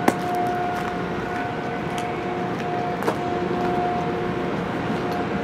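Steady mechanical hum of running machinery, with two sharp knocks about three seconds apart, the first the louder.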